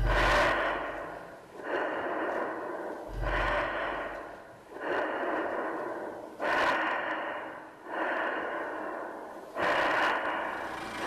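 Heavy, echoing breaths in a steady rhythm, a new one about every second and a half, each starting sharply and fading away. A low thud sits under the first and the third.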